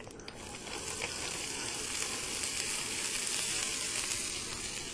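Sliced red bell pepper frying in hot oil in a skillet: a steady sizzle that starts as the strips go into the pan and swells over the first second or two.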